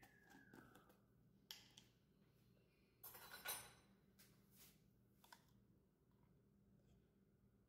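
Quiet handling sounds as a mayonnaise jar's blue screw-on lid is twisted off and set down on the counter. There is a short rasp about a second and a half in, then a louder scraping rasp about three seconds in, followed by a few light clicks. A faint falling whistle is heard at the very start.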